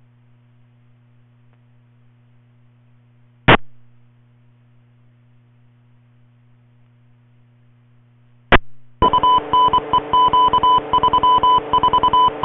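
Radio scanner audio: a low steady hum broken by two sharp clicks as transmissions key up, then, about nine seconds in, a loud, rapidly chopped signal of beeping tones over static on the channel.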